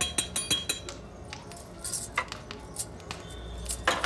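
Irregular light clinks of dishes and metal kitchen utensils, a dozen or so scattered sharp ticks, with a low hum coming in near the end.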